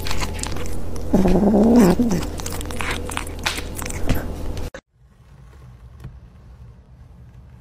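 A kitten gives a low, wavering growl for about a second while it chews, among scattered sharp clicks from the biting. The sound cuts off suddenly a little under five seconds in, leaving only a faint hiss.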